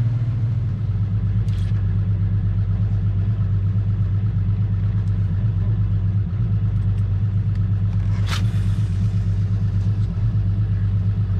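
Boat's outboard engine running steadily under way, a low, even hum with a fast regular pulse. A single sharp click sounds about eight seconds in.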